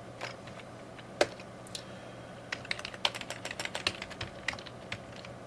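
Computer keyboard typing: a few scattered keystrokes with one sharper click about a second in, then a quicker run of keys in the second half.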